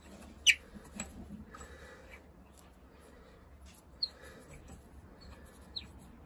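A puller being turned by hand to draw the crankshaft timing pulley off the crank, giving a few short high squeaks. The loudest squeak falls in pitch about half a second in, with a faint click just after and smaller squeaks near the end.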